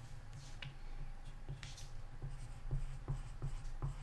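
Handwriting: a string of short pen strokes and light taps as a number is written out.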